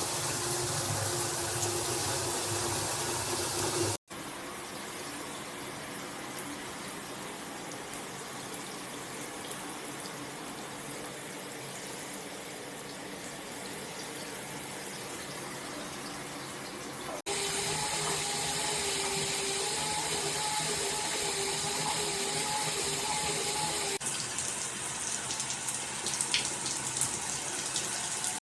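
Water spraying steadily from a handheld shower head. It cuts abruptly to a quieter spray about four seconds in, and back to a louder spray with a faint steady hum under it later on.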